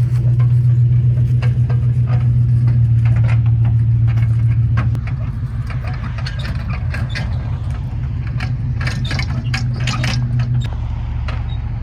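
A vehicle engine running steadily, easing off about five seconds in and dropping again near the end, with many knocks and rattles from a load of firewood jolting over rough ground.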